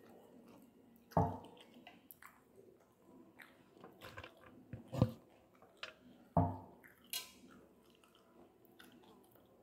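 A person chewing string hoppers and curry, with wet mouth sounds and three sharper clicks spread through the stretch.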